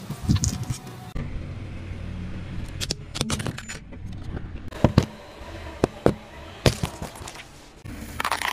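A car tyre rolling slowly over objects and crushing them, over a low steady engine rumble, with three loud sharp cracks in the second half as something breaks under the tyre.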